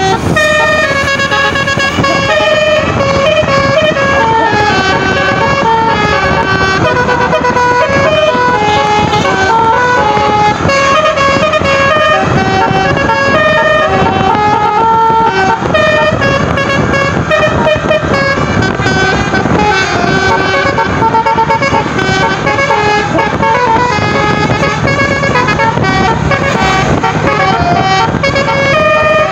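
Tour bus's telolet basuri melody horn playing a long tune, stepping quickly from note to note without a break.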